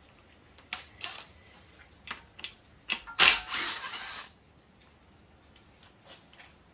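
Cordless power ratchet spinning out a bolt on the oil pickup tube of an LS V8 block for about a second, a little past three seconds in. Before it, a few short clicks and knocks of the tool and metal parts being handled.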